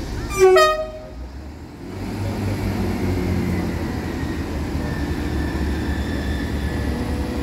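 Train horn giving a short two-tone toot, a low note then a higher one, about half a second in. The train then runs on with a steady low rumble that builds up about two seconds in.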